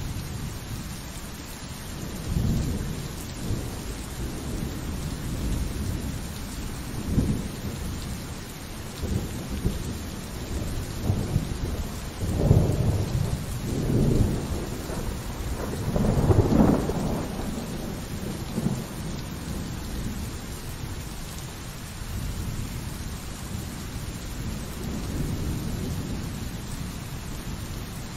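Steady pouring rain with thunder rolling through it in several low rumbles, the loudest peals coming about twelve to seventeen seconds in before easing back to the rain.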